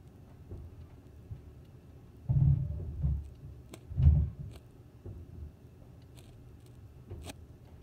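Muffled, deep thuds of something being struck overhead: three heavier ones between about two and four and a half seconds in, then a few faint clicks. The tenant below takes them for the upstairs neighbours hitting things in their kitchen.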